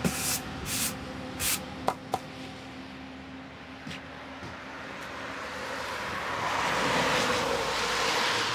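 A few quick swishes of a broom sweeping a doormat, then two sharp clicks about two seconds in. Later a road vehicle passes, its noise swelling toward the end.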